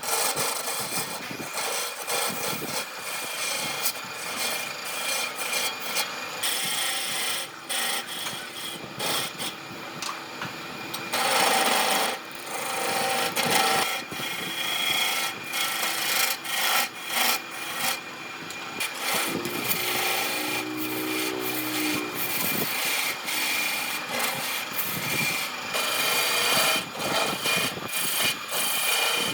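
Hand tool scraping and rubbing on wood in uneven strokes, like rasping or hand sanding, with a brief low hum about twenty seconds in.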